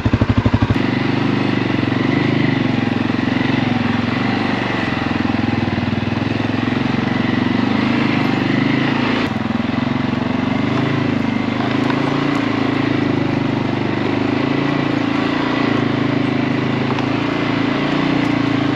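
CFMoto four-wheeler (ATV) engine running steadily as it tows a log-weighted wooden pallet drag along a dirt trail.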